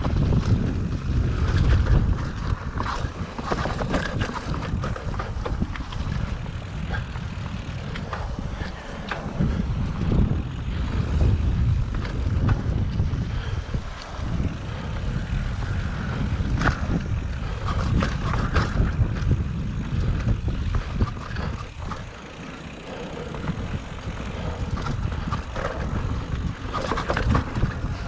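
Mountain bike riding fast over rough single track, heard as a steady low wind rumble on the microphone with frequent knocks and rattles as the bike hits roots and rocks.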